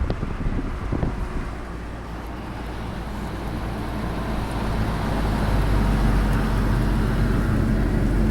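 Moving car's engine and tyre road noise heard from the cabin: a steady low rumble that grows louder over the second half.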